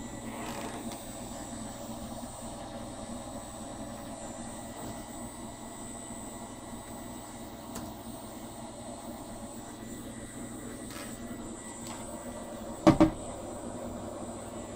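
Steady mechanical hum with a thin high whine, broken by a sharp double knock about thirteen seconds in.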